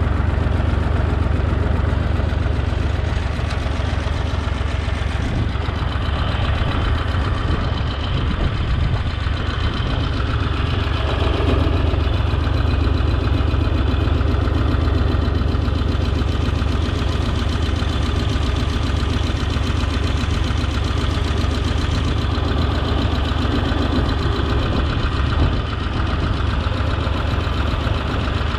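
Holder A45 compact tractor's engine running steadily and continuously, with a dense mechanical noise over a strong low hum.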